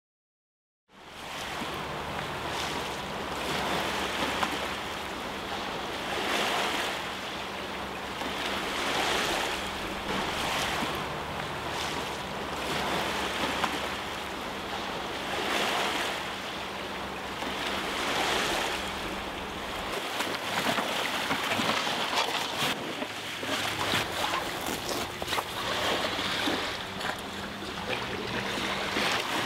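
Surf washing ashore in slow swells every two to three seconds, over a low steady hum. About two-thirds of the way through, the deepest part of the hum drops away and the surf turns more crackly.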